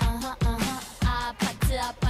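Pop music with a steady kick drum about twice a second and a voice singing over it.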